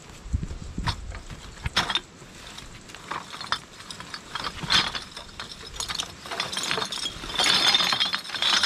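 A reusable shopping bag full of collected rubbish, drink containers among it, being opened and rummaged through: a run of crackling and clicking from the bag and its contents, busiest near the end.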